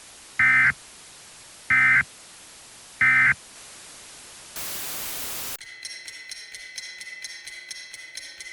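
Three short bursts of EAS digital header tones, the warbling data squawk that marks the end of an emergency alert message. A second of static hiss follows, then a fast, even ticking over a steady high tone.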